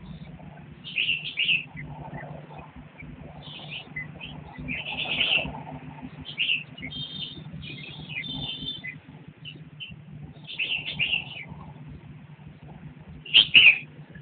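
Red-whiskered bulbuls chirping: short, scattered high calls, the loudest a pair near the end, over a steady low hum.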